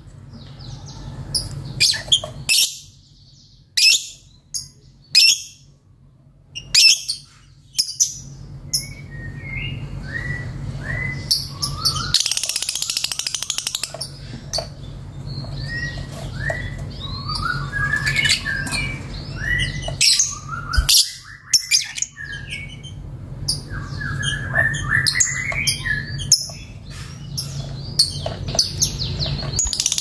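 A caged Fischer's lovebird calling: sharp high chirps spaced a second or so apart, then a harsh burst and a long run of quick, chattering notes.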